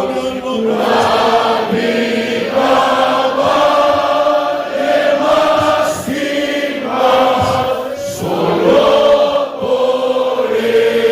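A group of voices singing a hymn together in long held phrases.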